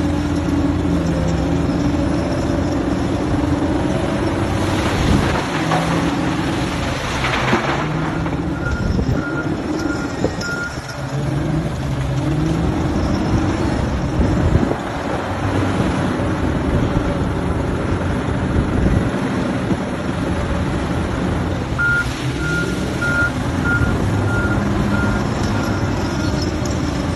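Komatsu WA800 wheel loader's big diesel engine working under load, its pitch rising and falling as it revs, with a reversing alarm beeping about twice a second in two runs of a few seconds, about nine seconds in and again near the end.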